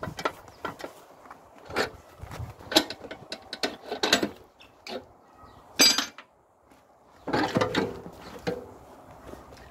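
Irregular metal clanks, knocks and scrapes from a rusty steel hand screw press being unscrewed and taken apart, its crossbar and pressing plate lifted off after a beeswax slumgum pressing.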